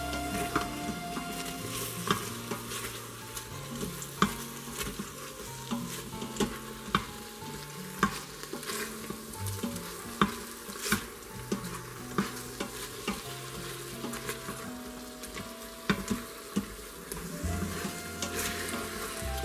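Beef stew meat sizzling as it browns in hot olive oil in an Instant Pot's stainless steel inner pot on sauté, with a silicone spatula stirring and scraping it. The spatula makes frequent sharp clicks against the pot.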